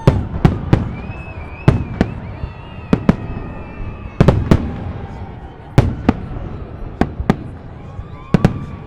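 Festive fireworks salute: shells bursting in a rapid, uneven series of sharp bangs, often two or three close together, about two a second, each trailing a short echo.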